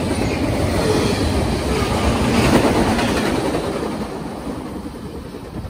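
Double-stack intermodal container train's well cars rolling past on the track, a steady rolling rumble that fades over the last couple of seconds as the train moves away.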